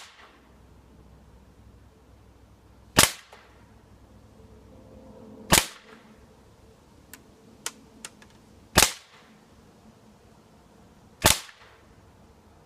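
Umarex XCP .177 CO2 BB pistol firing four single shots, each a sharp crack, about two and a half to three seconds apart. A few faint ticks fall between the second and third shot.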